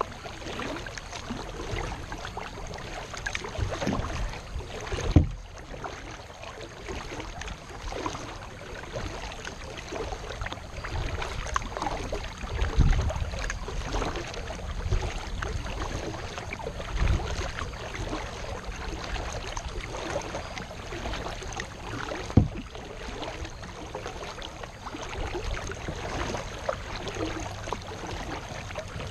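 Kayak paddling: paddle strokes splashing and water dripping, with two sharp knocks, one about five seconds in and one a little past twenty-two seconds.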